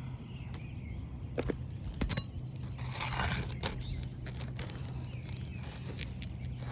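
Light clicks, clinks and a scraping rustle about three seconds in as asphalt shingles and their nails are worked loose by hand on a roof, over a steady low hum.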